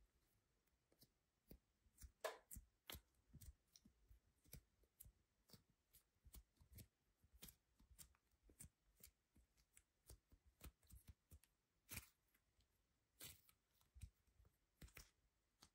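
Faint, irregular sticky clicks and crackles of modelling dough being squeezed and kneaded by hand, with a louder crackle a couple of seconds in.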